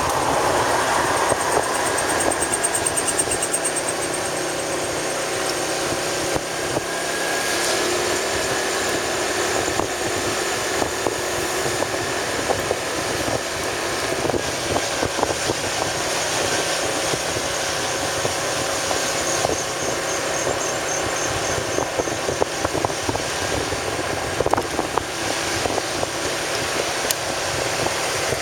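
A motor vehicle on the move: a steady engine and road noise with frequent small knocks and rattles as it goes over a broken road surface.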